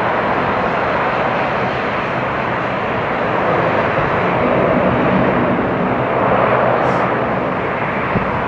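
Boeing 737-700 with CFM56 jet engines rumbling steadily as it rolls out and slows on the runway after landing, swelling a little near the middle.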